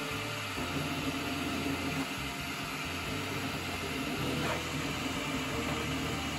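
Flashforge Adventurer 5M CoreXY 3D printer printing at high speed, its stepper motors whirring in quickly changing tones as the print head darts back and forth, over a steady hiss.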